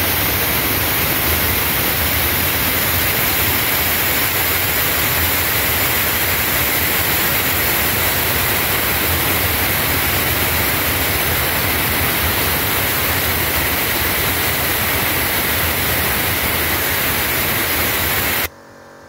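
Air blower with its nozzle removed blasting compressed air in a loud, steady hiss that cuts off sharply near the end, draining the tank. A Chicago Air Hush series compressor runs underneath at full speed.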